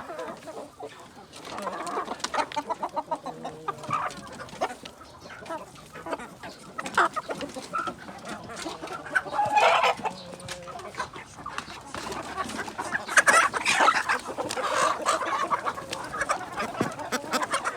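Kampung chickens clucking and calling in short, irregular bursts, with louder calls about ten seconds in and again about thirteen to fourteen seconds in.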